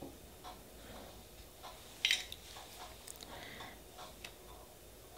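A nail-stamping scraper swiped lightly across a metal stamping plate to pick up red and green polish: one short scrape about two seconds in, among faint scattered ticks and taps.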